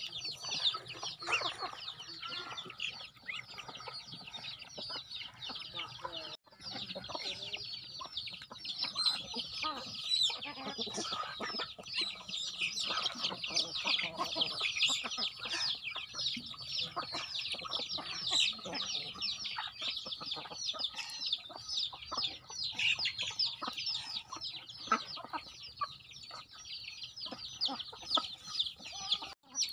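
A flock of chickens and chicks feeding, clucking and peeping in a dense, continuous chatter of short high calls. The sound briefly drops out about six seconds in and again near the end.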